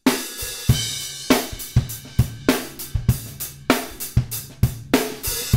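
Recorded acoustic drum kit, with kick, snare, hi-hat and cymbals, playing a steady groove. It is compressed through a Drawmer Dynamics compressor plugin, which gives each hit a snap at the front and a fairly natural decay.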